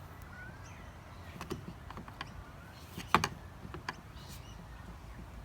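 Plastic headlight lens being worked against its housing to test the sealant holding it: scattered clicks and creaks, with the sharpest knock a little after three seconds in.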